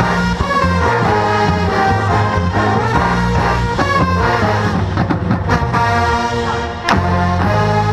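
Marching band brass playing a full, loud passage with strong low brass underneath. The sound sags briefly about six and a half seconds in, then a sharp hit brings it back.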